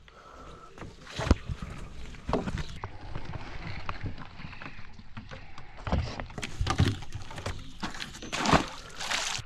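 Scattered knocks and scuffs on wooden dock boards as a landing net holding a common snapping turtle is handled and the turtle crawls over the planks; the sharpest knock comes about a second in and another loud one near the end.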